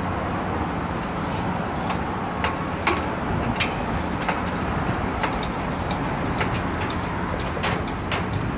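Steady low rumble of street traffic, with scattered light clicks and clinks from the lifting chains as the transformer hanging on the chain block is handled, several coming close together near the end.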